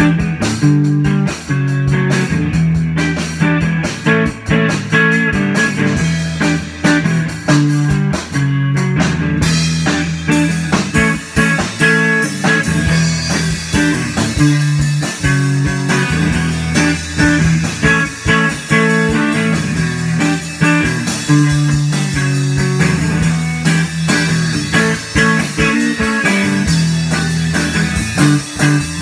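A live guitar-and-drums duo playing a bluesy rock jam in a small room: a guitar riffing in the low register over a drum kit. The cymbals become steady and busier about ten seconds in.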